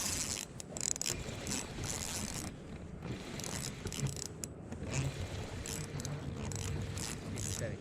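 Fishing reel being cranked to retrieve line with a hooked striped bass on, in a run of short, uneven ratcheting strokes.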